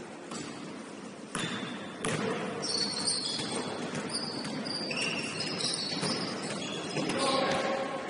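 Basketball game play on a gym court: a ball bouncing, and many short high-pitched sneaker squeaks on the hardwood from about two and a half seconds in.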